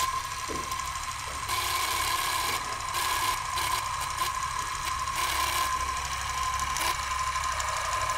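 Film projector running, a steady mechanical whir and clatter with a constant high hum over a low rumble, starting with a sharp click.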